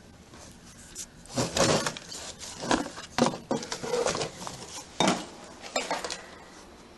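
Objects being handled and shifted among clutter: a series of irregular knocks and rattles from about a second in until about six seconds in.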